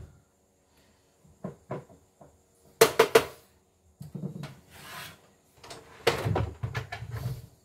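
Plastic housing of a partly dismantled CNY E960 embroidery machine being handled and shifted on a wooden workbench. A few light clicks come first, then a sharp cluster of knocks about three seconds in, followed by scraping and bumping as the machine is turned.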